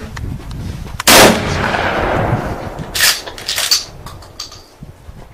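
A single loud gunshot about a second in, echoing for about two seconds, followed by a few shorter sharp cracks and clatters around three to four seconds in.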